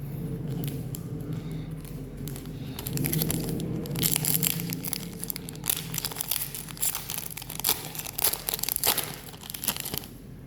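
A Pokémon card booster pack wrapper being torn open and crinkled in the hands, with dense crackling from about four seconds in until near the end, over a steady low hum.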